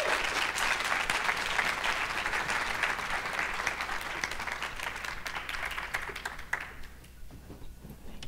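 Audience applauding, the clapping fading steadily and dying away about seven seconds in.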